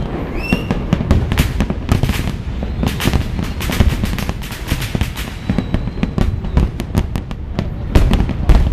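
Fireworks display: a dense run of crackling bursts and deep booming shell explosions, with a short whistle near the start and the heaviest booms near the end.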